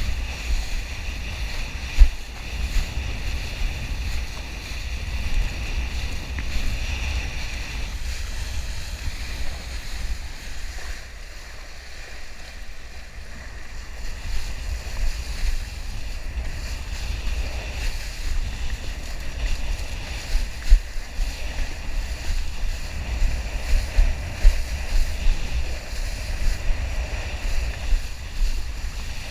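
Wind buffeting a body-mounted action camera's microphone while a kiteboard planes across choppy sea, with water hissing and slapping under the board. Sharp knocks and gusts come now and then, more often in the second half.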